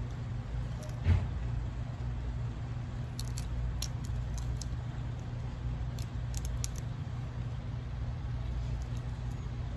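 Hands peeling cooked shrimp, with clusters of short, crisp clicks and crackles of shell breaking. A single thump about a second in, over a steady low rumble.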